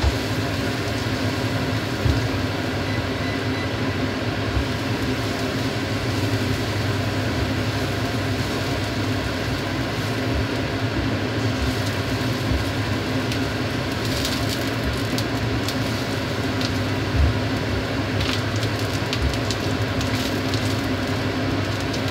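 Chopped garlic sizzling as it is stir-fried in a nonstick frying pan and stirred with a silicone spatula, over a steady low hum. Light scraping taps of the spatula against the pan come through in the second half.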